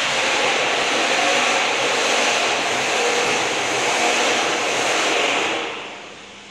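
Steady, loud rushing machine noise, like a running blower or motor, from the noodle packing line. It falls off sharply near the end.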